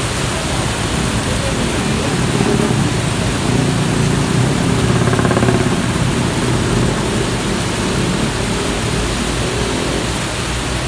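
Heavy rain pouring onto a flooded street, mixed with the engine rumble and tyre noise of passing cars and motorcycles. The engine rumble swells between about two and six seconds in as a vehicle goes by.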